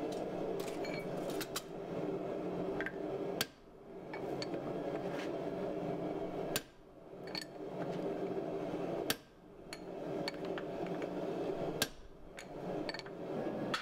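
Hammer blows on a hand punch driving into a hot steel billet on an anvil, starting an axe eye: a scattered series of light, sharp strikes rather than a steady rhythm. A steady low hum runs underneath and cuts out abruptly several times.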